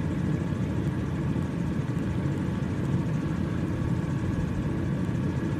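A vehicle engine idling, a steady low rumble with no change in pitch.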